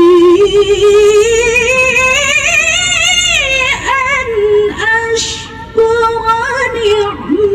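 A woman reciting the Quran in the melodic tilawah style. One long phrase with rapid, ornamented wavering climbs higher in the middle and breaks off about four seconds in, then a new, steadier held phrase begins.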